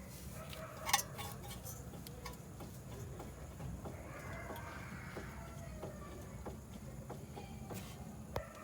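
Faint, irregular light clicks and knocks over a low hum, with one sharper knock about a second in and another near the end.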